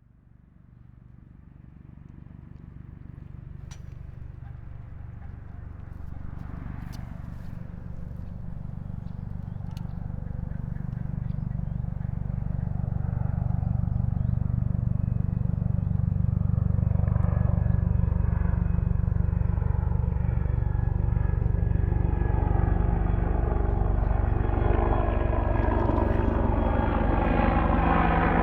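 AH-64 Apache helicopter approaching: its rotor beat and twin-turbine whine grow from faint to loud over the first fifteen seconds or so, then hold loud and steady. Near the end, whining tones rise and shift as it nears overhead.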